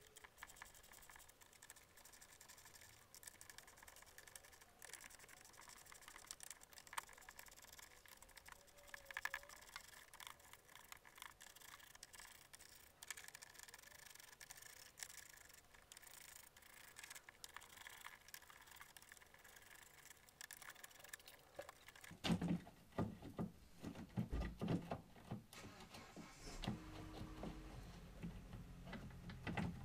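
Faint clicking of a socket wrench working the fasteners of a plastic underbody cover, with small tool-handling noises. About 22 seconds in come louder knocks and clatters as the plastic cover is worked loose and handled.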